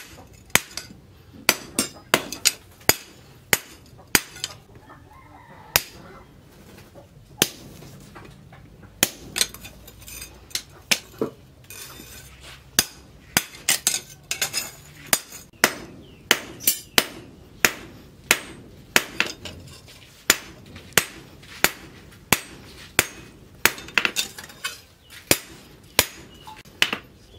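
Hand hammer striking the red-hot edge of a leaf-spring steel cleaver blade on a round metal post anvil: sharp ringing blows at about two a second, in runs broken by a couple of short pauses.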